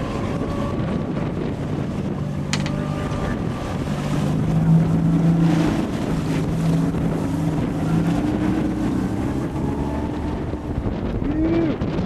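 A boat motor running steadily at low speed, its pitch and level shifting slightly, with wind buffeting the microphone.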